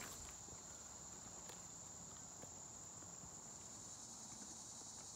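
Faint, steady, high-pitched drone of insects in the woods, a continuous chorus of crickets with no break.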